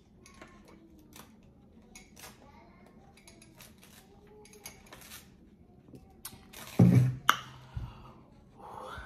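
Close-up eating sounds: soft mouth clicks and chewing as spicy chicken is eaten, with light clinks. About seven seconds in comes a short, loud voiced exhale, a reaction to the heat.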